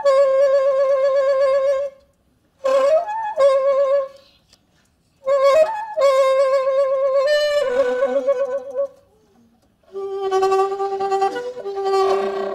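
Solo free-improvised saxophone: long held notes with a wide, even vibrato, broken by short pauses. One note slides upward about three seconds in, and near the end a lower, rougher-edged note takes over.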